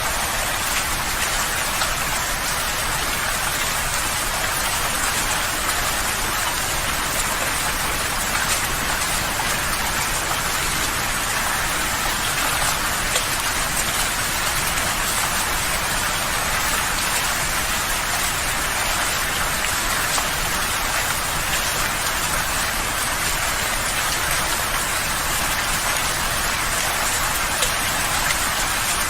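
Steady rain falling: an even hiss of drops with fine patter, unchanging throughout.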